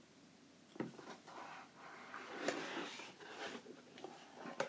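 Lid of a rigid box being worked off by hand: a sharp tap about a second in, then a few seconds of scraping and rustling as it slides, and another tap near the end.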